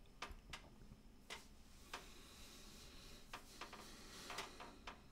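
Near silence: room tone with a few faint, irregularly spaced clicks.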